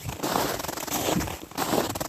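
Footsteps crunching on frozen forest ground at a steady walking pace, about three steps in two seconds.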